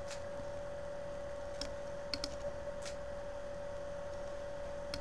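A handful of single computer mouse clicks, spaced irregularly, over a steady faint hum.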